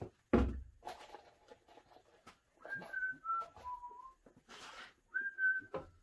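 A heavy knock about half a second in, then a person whistling a short phrase of three notes that step down in pitch, and one higher whistled note near the end. Light clicks and a brief rustle of tools and wood being handled come in between.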